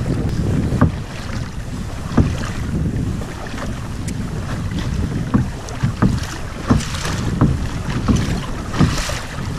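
A plastic pedal kayak crossing ferry-wake swells: short slaps and knocks of water against the hull come every second or less, more often in the second half. Steady wind noise on the microphone runs beneath.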